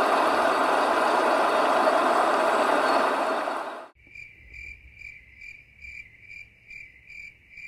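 A steady rushing noise cuts off suddenly about four seconds in. It is followed by crickets chirping quietly in an even rhythm, a high trill pulsing about two to three times a second.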